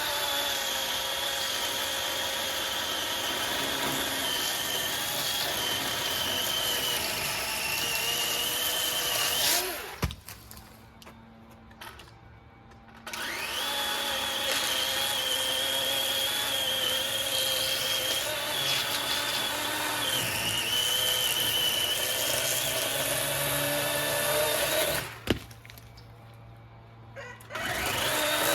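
DeWalt 20-volt cordless electric chainsaw running as it cuts through a cherry stem, with a steady high motor whine. It runs for about ten seconds, stops, runs again for about twelve seconds, then gives a short burst near the end. A sharp click comes just after each long run stops.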